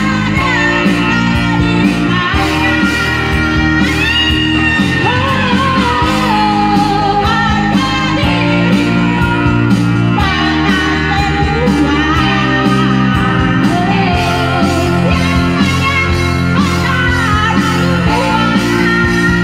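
A song: a voice singing over guitar and bass, with a steady beat.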